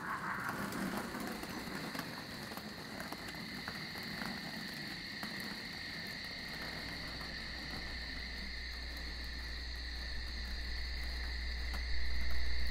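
Night ambience: a steady chorus of chirring crickets and frogs. A low rumbling drone builds underneath over the last several seconds, growing louder near the end.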